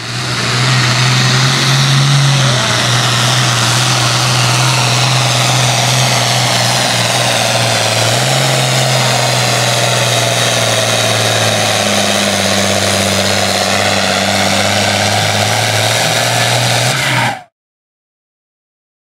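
Pulling tractor's engine working hard under full load as it drags a weight-transfer sled, a steady heavy drone that shifts pitch a couple of times and cuts off suddenly near the end.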